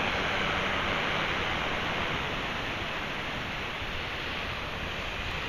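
Ocean surf washing onto the beach: a steady hiss with no engine tone audible.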